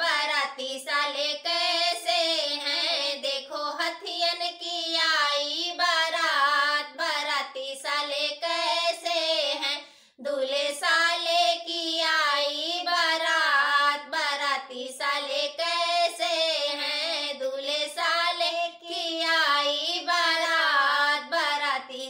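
Two women singing a gaari geet, a North Indian folk wedding song teasing the groom's party, unaccompanied, with a short break for breath about ten seconds in.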